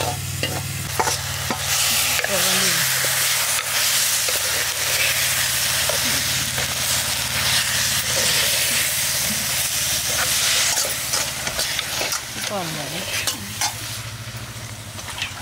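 Tomato puree sizzling in hot oil in a cooking pot while being stirred with a ladle. The ladle scrapes and clicks against the pot now and then over a continuous frying hiss.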